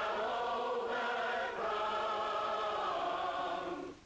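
A choir of voices singing slow, long held notes, the last one sustained for about two seconds before breaking off near the end.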